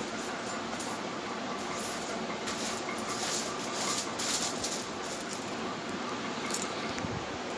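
A steady background whir, with bursts of cloth rustling between about two and four and a half seconds in and once more near the end as bedding and clothes are handled.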